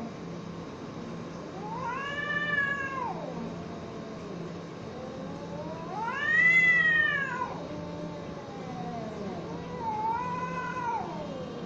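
Two cats caterwauling at each other in a standoff: threat yowling before a fight. There are three long howls that rise and fall in pitch, the middle one the loudest, with lower, wavering wails in between.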